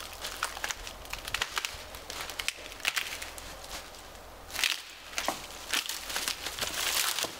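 Footsteps crunching through dry fallen leaves, with twigs crackling and brush rustling as a long dry pole is dragged through the undergrowth. Louder bursts of rustling come about halfway through and again near the end.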